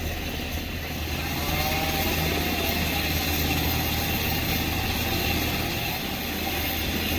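A machine's engine running steadily, with a constant low hum that gets a little louder about a second in.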